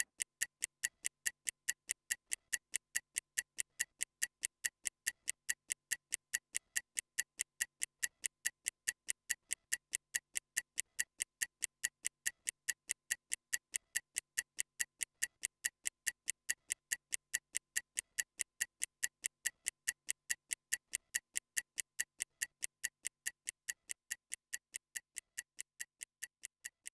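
Stopwatch ticking sound effect: rapid, even ticks counting off a 30-second rest interval.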